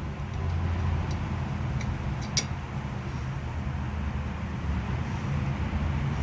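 A few light metallic clicks, with one sharp click about two and a half seconds in, as the lower brake caliper bolt is worked into place by hand, over a steady low rumble.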